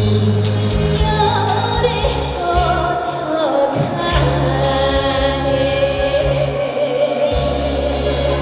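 Female trot singer singing live over an amplified backing track with a heavy bass line, her voice sliding between notes.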